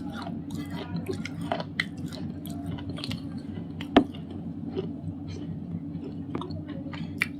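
A thick white slate pencil being bitten and chewed: irregular crunching and clicking, with one sharp, louder crunch about four seconds in, over a steady low hum.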